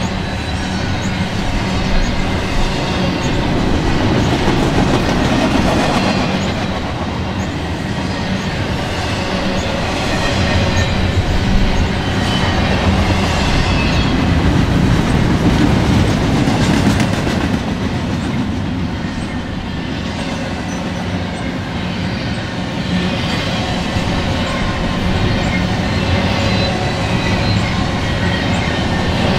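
Double-stack intermodal freight train rolling steadily past, its well cars' steel wheels clicking over the rail joints in a continuous clatter.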